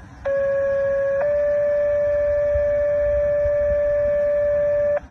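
A long, steady horn tone on one pitch with overtones. It starts abruptly, steps slightly higher about a second in, and cuts off abruptly near the end, over a faint low rumble.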